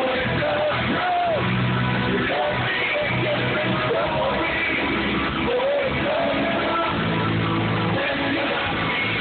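Live band playing loud amplified music with electric guitars and drums while a man sings into a microphone, filling a large hall. The sound is recorded dull and crowded from out in the audience.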